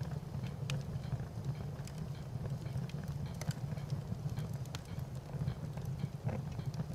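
Fire crackling: irregular sharp snaps and pops, a few each second, over a steady low rumble.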